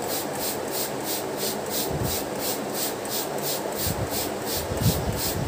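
Plastic trigger spray bottle squeezed rapidly, about three or four short sprays of water a second, misting a sponge cake layer to soak it. A few dull low bumps are heard around the middle and near the end.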